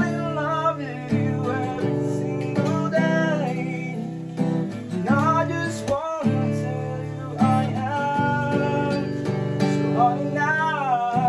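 Acoustic guitar strummed in chords with a man singing along.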